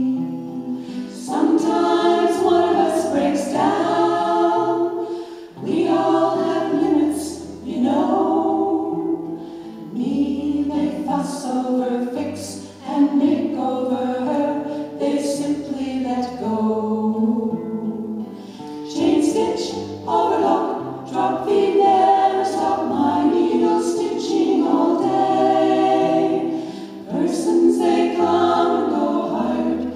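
A women's vocal group singing together in multi-part harmony, in phrases with short breaks between them.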